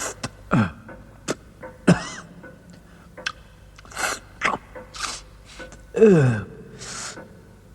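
A character's voice with a heavy cold: several short moans falling in pitch, with sneezes and sharp sniffing breaths between them.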